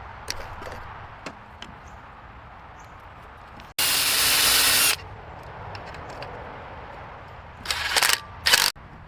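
A loud hissing spray lasting about a second, then two shorter spray bursts near the end, over low background noise with a few faint clicks.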